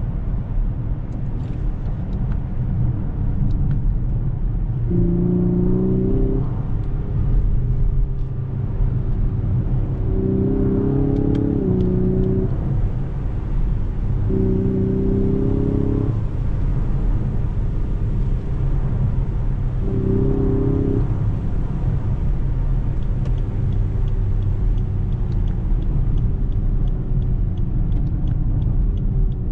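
A 2019 Lexus LS 500's twin-turbo 3.5-litre V6 and tyres heard from inside the cabin while driving: a steady low rumble. Four times, for a second or two each, a steady engine hum swells over the rumble.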